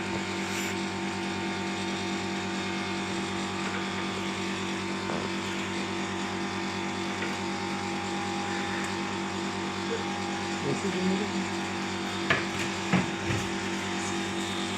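A steady mechanical hum at a constant pitch, with a short voice-like sound about eleven seconds in and two sharp knocks near the end.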